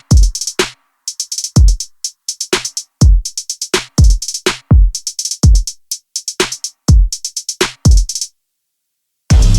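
Background electronic music: a drum-machine beat with deep kicks that fall in pitch and quick hi-hat ticks, cutting off near the end.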